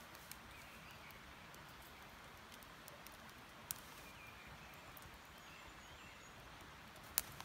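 Small wood-burning camp stove burning with flames, giving a few sharp crackling pops over a faint steady hiss of a stream, with faint bird chirps. The loudest is a single sharp click near the end.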